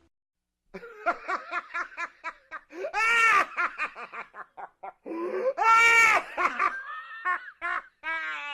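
A person laughing hysterically: quick runs of short cackling bursts, broken by two long, loud, high-pitched shrieks of laughter about three and six seconds in, and ending on a drawn-out wheezing laugh near the end.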